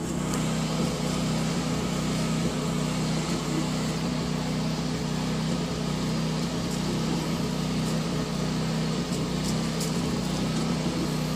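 Steady mechanical hum of the forge's blower running throughout. A few faint crackles come in the second half as the hot 1095 high-carbon steel blade is dipped into quench oil and the oil flares.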